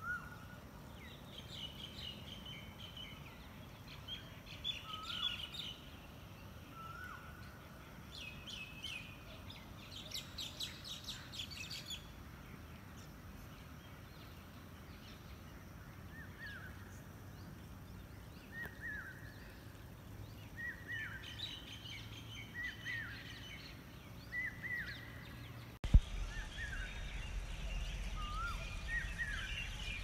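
Several birds singing and calling: repeated short whistled notes, higher chirps and bursts of rapid trills over a steady low outdoor rumble. A single sharp click comes near the end, after which the rumble grows louder.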